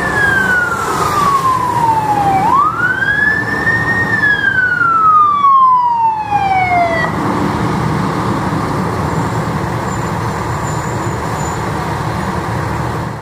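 Fire truck siren wailing in slow sweeps, each a quick rise followed by a long fall. It goes through about two cycles and cuts off about seven seconds in. After that the aerial ladder truck's engine and tyres run steadily as it comes close.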